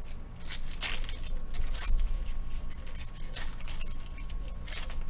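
Trading cards being handled at close range: a few short scraping and rustling sounds of cards sliding against each other and against packaging, at uneven intervals.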